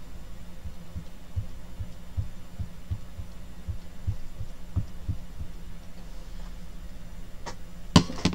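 A steady low hum with soft low thumps about two or three a second, then a sharp knock and a couple of clicks near the end as the stamped sheet of cardstock is picked up and moved across the desk.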